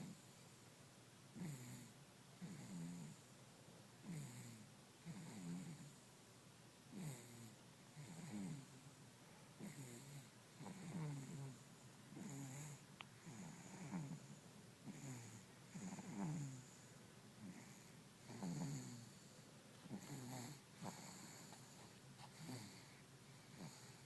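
An 8-month-old baby snoring in sleep: short snores with each breath, about one every second and a half, each sliding down in pitch.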